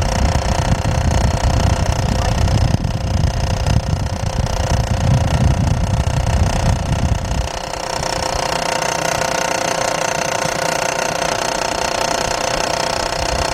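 2003 GMC Envoy's 4.2-litre inline-six idling with the AC on, with a rough rattling knock from the serpentine belt tensioner; the rattle drops away about halfway through while the engine keeps running. The mechanic traces it to a worn belt tensioner whose pulley is hitting against the engine block under the AC load.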